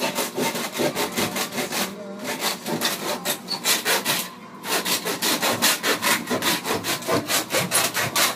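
Handsaw cutting wood in quick, regular strokes, with two brief pauses in the sawing.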